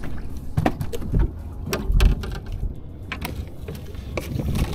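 Irregular metal and plastic clicks and knocks from a bow-mounted electric trolling motor's mount and shaft being handled as the motor is lowered into the water, over a low steady rumble.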